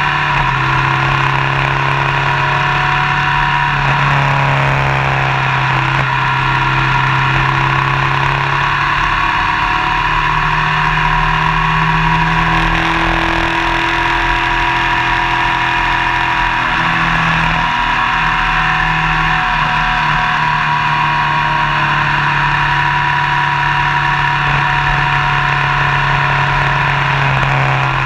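Motorcycle engine running at road speed over steady wind and road noise, its pitch shifting a few times as the speed changes.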